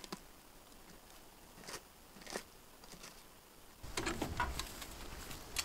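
A few scattered steps crunching in snow. About four seconds in, a louder, busier stretch of plastic sap buckets, lids and jugs knocking and rustling as they are handled in a wire cart.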